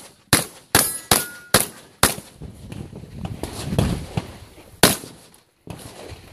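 Saiga-12 semi-automatic shotgun fired in a quick string of five shots, about two and a half a second, then one more shot after a pause near the end. Short metallic rings follow some of the shots as steel targets are hit.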